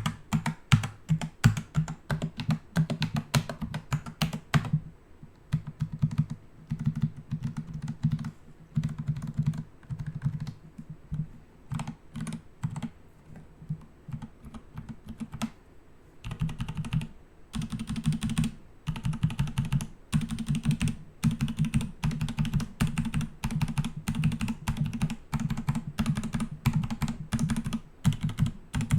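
Typing on a computer keyboard: rapid key clicks in runs with short pauses, lighter from about five seconds in until about sixteen seconds, then heavier again.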